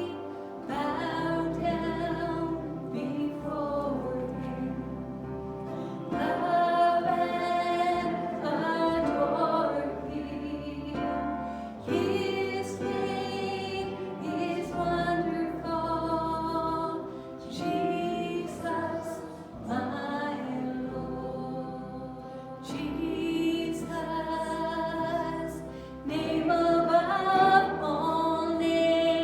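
Worship music: voices singing sustained phrases over instrumental accompaniment.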